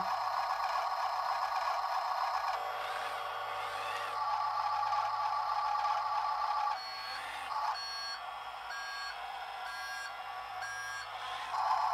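An RC dump truck's sound module (WLtoys 14600) playing a simulated truck engine through its small built-in speaker, the note shifting as the throttle is worked a couple of seconds in. Over the second half, as the truck backs up, it sounds a reversing beeper about once a second.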